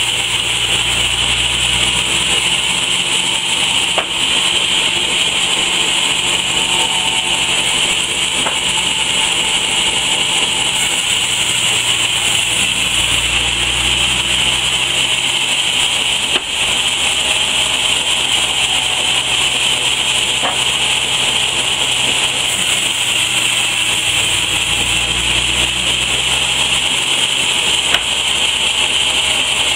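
Stationary sawmill saw running steadily under a loud hiss while it cuts wooden boards fed along a roller table, with a low hum beneath. A few sharp knocks from wood being handled come about four seconds in, around the middle, and near the end.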